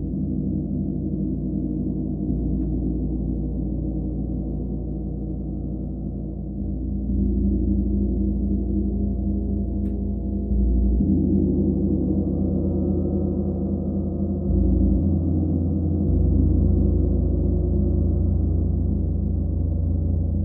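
Gong played as a continuous, swelling drone: a dense low wash of many overlapping tones, growing louder in steps as it is struck again, around 7, 11 and 16 seconds in.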